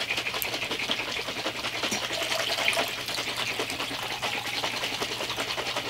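Water being poured from a plastic gallon jug into a plastic shaker cup, a steady splashing stream, its pitch rising slightly as the cup fills.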